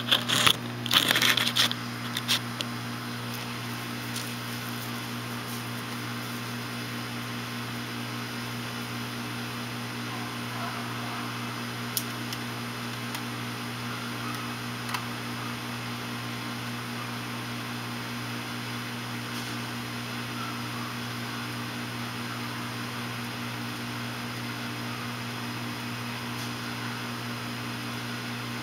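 Central air-conditioner outdoor condensing unit running with a steady hum and fan whir. Rustling and knocks from the camera being handled and set down open it, and there is a single sharp click about twelve seconds in.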